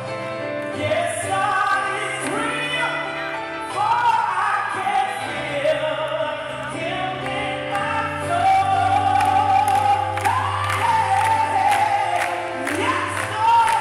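A woman singing a gospel song into a microphone over instrumental accompaniment with a steady bass line.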